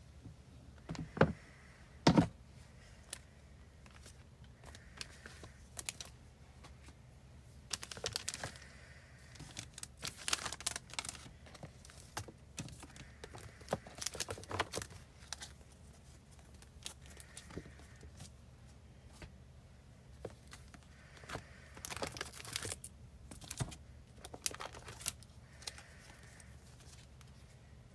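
Postcards and plastic binder sleeves being handled during filing: irregular rustling and crinkling with sharp clicks and taps, two of them loud about a second and two seconds in.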